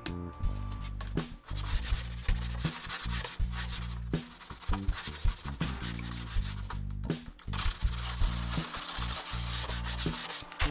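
Sandpaper rubbed by hand in repeated back-and-forth strokes along the edge of a wooden cutting board.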